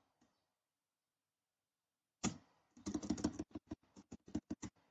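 Computer keyboard being typed on: a single keystroke about two seconds in, then a quick run of a dozen or so keystrokes near the end.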